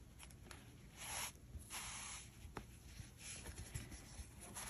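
Faint rustling and rubbing of chunky acrylic yarn and crocheted fabric being handled, with two soft swishes about one and two seconds in and a few light ticks.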